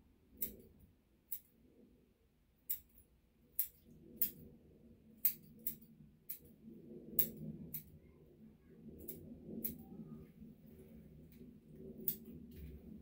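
Grooming scissors snipping a Yorkshire terrier's hair, about a dozen sharp snips at uneven intervals. A faint low hum runs underneath from about four seconds in.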